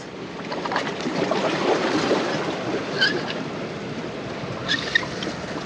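Surf washing steadily against the rocks of a jetty, swelling about a second in, with a few short clicks near the middle and again near the end.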